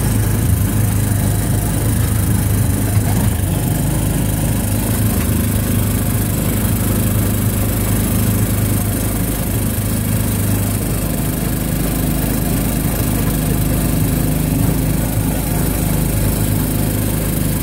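Small gasoline engine of a Disneyland Autopia car running steadily as the car drives along the track, heard from the seat. Its low drone changes about ten seconds in.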